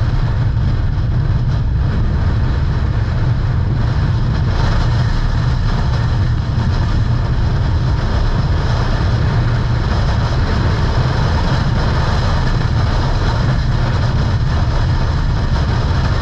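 Car driving at road speed: a steady rush of wind and road noise with a heavy low rumble.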